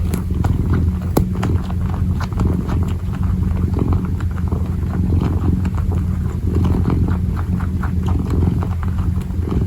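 Kitten purring steadily, a close, continuous low rumble, with soft irregular ticks and scratches from its paws kneading.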